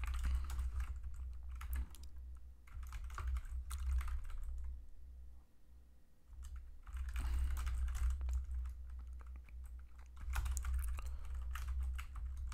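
Typing on a computer keyboard in quick runs of keystrokes, with a pause of about two seconds near the middle.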